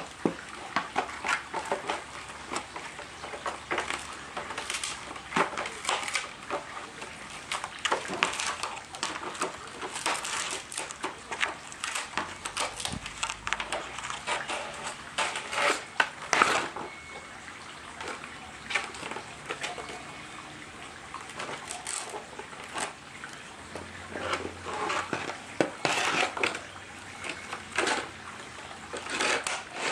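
Dry palm frond crackling and scraping on paving as two dogs chew and tug at it, with irregular sharp crackles that come thick at times and thin out at others.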